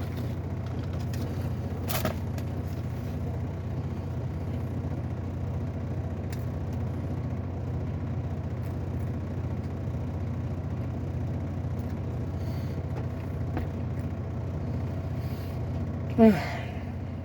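A steady low mechanical hum, with a short sharp click about two seconds in and a brief falling vocal sound near the end.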